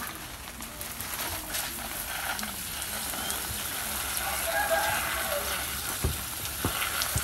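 Water spraying from a garden hose onto leafy potted plants, a steady hiss of spray, with a sharp knock near the end.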